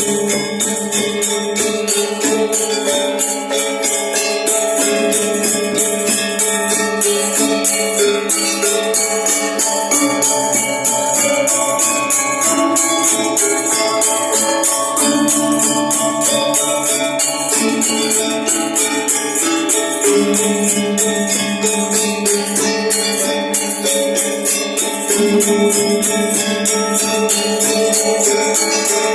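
Balinese gamelan gong ensemble playing. Bronze metallophones and gongs carry several pitched lines over a rapid, even clashing of small cymbals.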